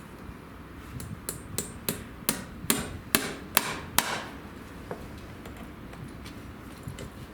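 Farrier's hammer driving a horseshoe nail through a shoe into the hoof wall: a run of about nine sharp metallic taps, roughly three a second, that grow louder, followed by one faint knock.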